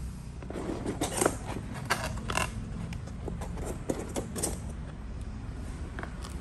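Handling noise from a hand gripping and tilting an Asus VivoBook laptop's lid: a run of light clicks, taps and rubs through the first four seconds or so, then one more click near the end, over a low steady hum.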